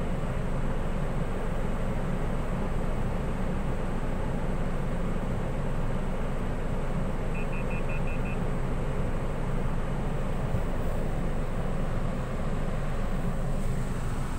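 Steady low running rumble inside a car's cabin, unchanging throughout. A little past halfway comes a quick run of five faint, short, high beeps.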